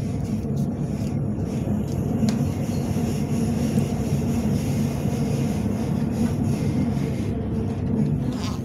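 Cabin noise inside a Siemens Nexas electric suburban train under way: a steady rumble of the wheels on the track, with a low, even hum.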